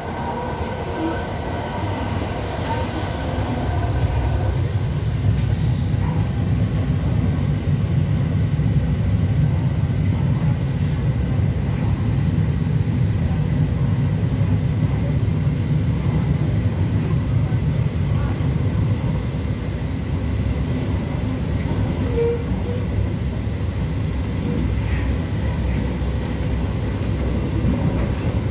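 EP2D electric multiple unit running along the line: a steady low rumble of wheels and running gear that grows louder about four seconds in, with a faint steady high tone above it.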